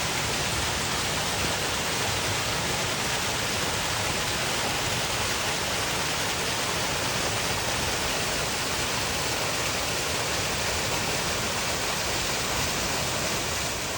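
Steady rushing of a large waterfall running with a good spring snowmelt flow.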